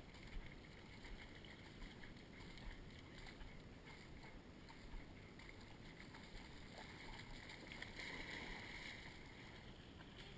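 Faint sloshing and splashing of shallow swamp water as it is waded through.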